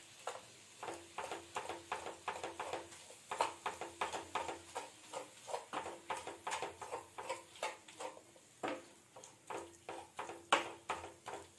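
Spatula tapping and scraping in a cooking pan at about three strokes a second, with a couple of short pauses, as minced chicken kheema is stirred and mashed while it cooks.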